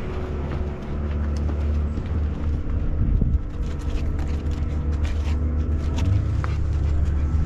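An engine running steadily with a low, even drone, with a few faint clicks over it.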